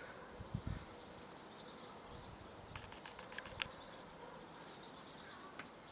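Quiet outdoor background with a faint steady hum, a couple of low bumps about half a second in, and a few faint clicks around three seconds in.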